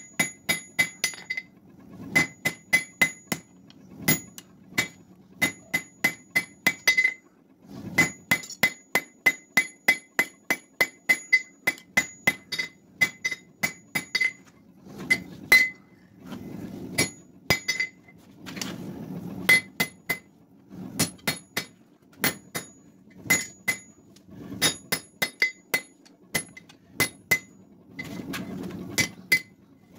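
Hand hammer forging a red-hot steel bar held in tongs on an anvil: runs of hammer blows, two to three a second, each with a bright metallic ring, broken by short pauses. The blows thin out near the end.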